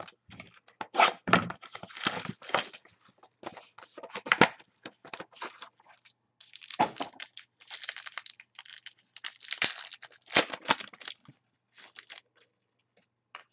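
Trading card pack wrapping being torn open and crinkled by hand: an irregular run of tearing, crinkling and rustling noises with a few sharper cracks.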